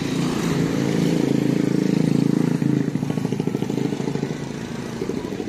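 Motorcycle engine running, getting louder toward about two seconds in, then a fast, even putter that eases off.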